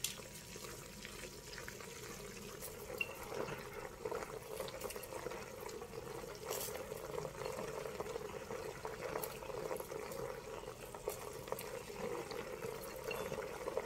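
Faint, steady sound of water boiling in the bottom of a steamer pot beneath the layered meat, with a few faint light clicks.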